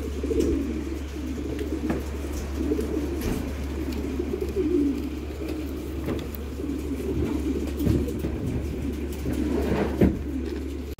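Many racing pigeons cooing together in a continuous low murmur, with scattered knocks and a sharp thump about ten seconds in, over a steady low hum.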